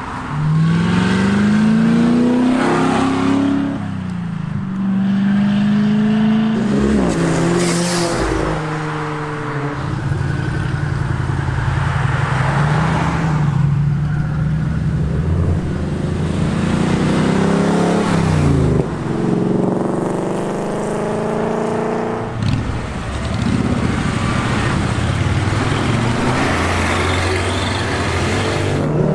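Cars accelerating hard past one after another, the engine notes climbing in pitch through the gears, dropping at each shift and falling away as they pass.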